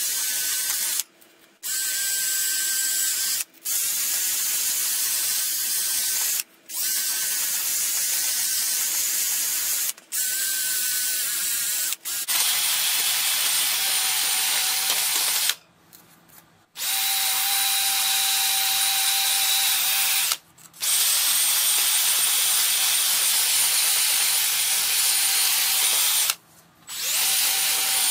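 Cordless drill spinning an abrasive attachment against a rusty cast-iron cylinder wall of a Chevy 350 small-block, scrubbing the rust off the bore. It runs in stretches of a few seconds with brief stops between them. From about halfway through it runs louder, with a steady high whine.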